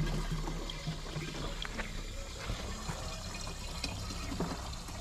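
Water running from a tap into a plastic chicken waterer as it fills, with a few small clicks and knocks of the plastic being handled.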